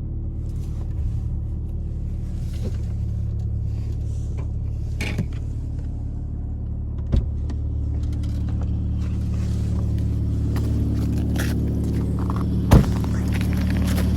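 Mercedes-Benz W202 C180 engine running steadily on a cold start, with short squeaks from the alternator. Two brief knocks come about 7 and 13 seconds in.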